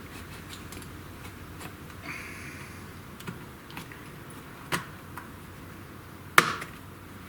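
Plastic retaining clips of a laptop's casing popping undone as it is pried apart with a wooden stick: a few faint ticks and a brief squeak, then two sharp snaps about two seconds apart, the second the loudest, near the end.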